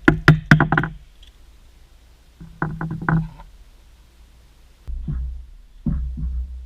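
Motorcycle fork parts being handled: a quick run of sharp metal clicks and knocks, a second cluster a couple of seconds later, then low thumps and rumbling handling noise near the end.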